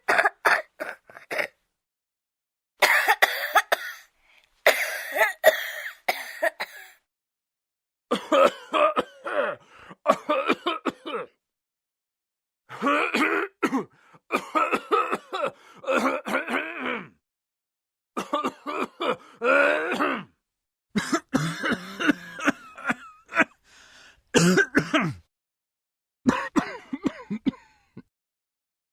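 Human coughing and throat clearing: about eight separate bursts of several rapid coughs each, with short silent gaps between them.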